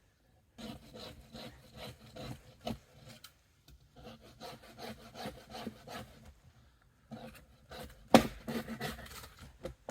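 Hand saw cutting through a tree branch in runs of quick back-and-forth strokes, with brief pauses, and a loud sharp crack about eight seconds in.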